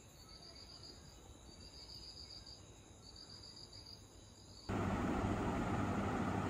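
Faint insect chirping, three short bursts of rapid high-pitched trills over a low hiss. About two-thirds of the way through, a much louder steady rushing noise cuts in suddenly.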